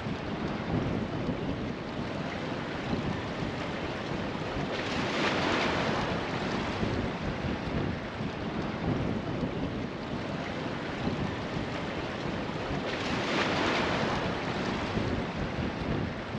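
Steady rush of ocean surf, swelling louder as waves break about five seconds in and again about thirteen seconds in.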